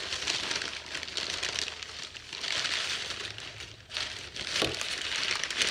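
Newspaper wrapping crinkling and rustling as it is pulled back from a pile of dried smoked fish, with a short knock about three quarters of the way through.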